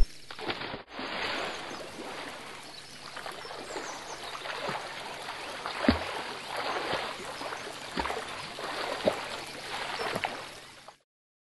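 Water rushing and splashing steadily, with several sharper splashes in the second half, as a swimmer bursts up through the surface of a pool. The sound cuts off near the end.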